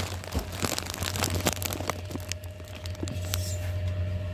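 Plastic snack packaging crinkling with scattered clicks as it is handled, over a steady low hum. A faint steady tone comes in about two seconds in.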